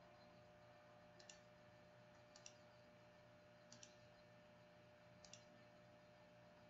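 Faint computer mouse clicks: four quick double clicks, spaced a little over a second apart, over a low steady electrical hum.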